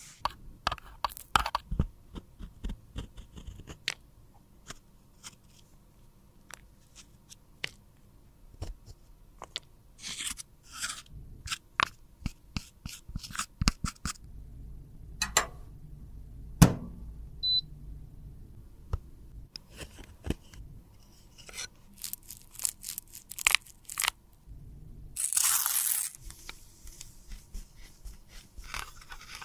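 Pressed face powder in a metal compact being scraped and broken up with a small tool: crisp scratching, crunching and ticking strokes. Near the end a wipe is rubbed over the emptied metal pan, giving a short stretch of steady hissy rubbing.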